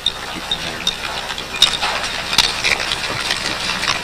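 Mule team hauling logs through deep snow: hooves crunching in the snow and harness hardware clinking, with several sharp cracks and knocks a couple of seconds in.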